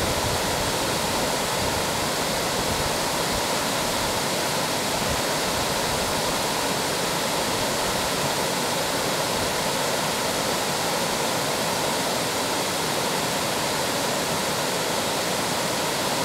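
Water pouring over an old mill dam spillway: a steady, unbroken rushing that does not change.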